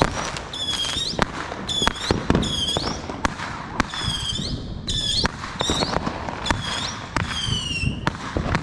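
Whistling fireworks going off in quick succession: a string of shrill whistles, each falling slightly in pitch, among many sharp bangs and pops.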